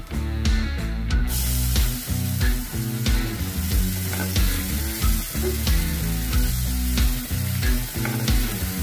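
Chopped garlic and onion sizzling in hot oil in a nonstick frying pan while a silicone spatula stirs them. The frying hiss grows much stronger about a second in. Background music with a steady bass runs underneath.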